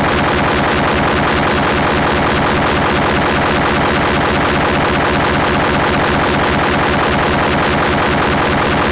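A very loud, heavily distorted cartoon rage sound effect: a harsh, constant noise with fast, even pulsing, like rapid gunfire.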